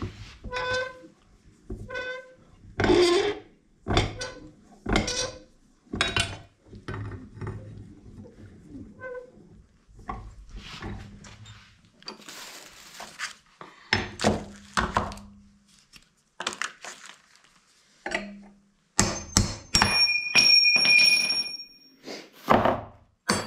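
Hammer blows on a steel punch wedged in a 1968 Volkswagen Beetle pedal cluster clamped in a bench vise, each strike ringing briefly, about one a second for the first ten seconds. Scattered metal knocks follow, and near the end a piece of steel gives a clear, high ring.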